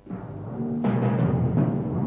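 Title music led by timpani: the music swells in from silence, and a heavy drum stroke lands a little under a second in.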